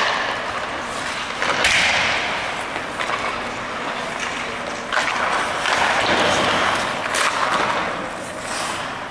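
Ice hockey skates scraping and carving across the ice in swells of hiss, with a few sharp knocks, the loudest about a second and a half in and again about five seconds in.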